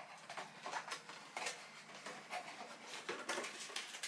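Cardboard box being handled: irregular light taps, scrapes and rustles as it is turned over and its end flap is pried open.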